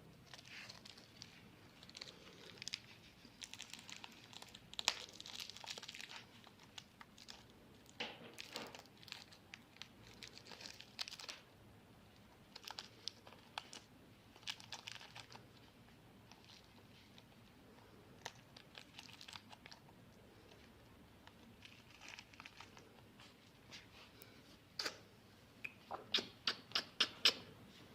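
Alexandrine parakeet tearing and crinkling a toffee's wrapper with its beak, in scattered bursts of crackling, with a quick run of sharp clicks near the end.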